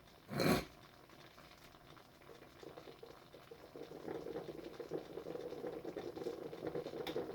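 Cory vacuum coffee maker bubbling and gurgling as boiling water is forced up into the top chamber, growing louder from about three seconds in. A short burst of noise comes about half a second in.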